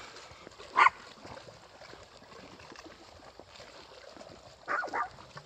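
A Chihuahua yipping: one sharp yip about a second in, then two quick yips close together near the end.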